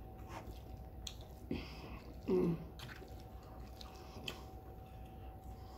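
Close-miked chewing of a mouthful of teriyaki chicken and noodles: soft wet mouth clicks and smacks. About two and a half seconds in comes a short hummed "mm" that falls in pitch, the loudest sound.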